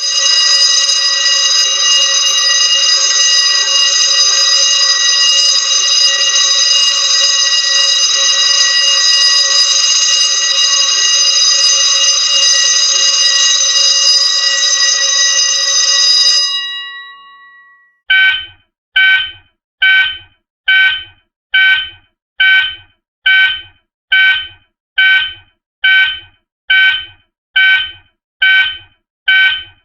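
Fire alarm sounding continuously at a loud, steady level for about sixteen seconds, then dying away. A fire alarm sounder then beeps in short, evenly spaced pulses, a little more than one a second.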